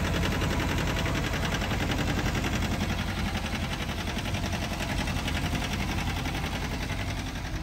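John Deere compact tractor engine running steadily under the driver as the tractor moves off.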